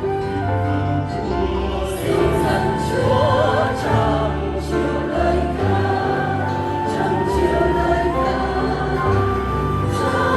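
Choral music: a choir singing sustained, slowly changing chords over a steady low accompaniment.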